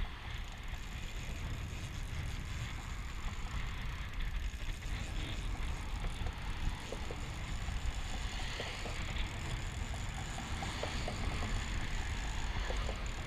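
Steady wind rumble on the microphone and road traffic passing on the bridge, with a few faint ticks from the fishing reel as it is cranked in.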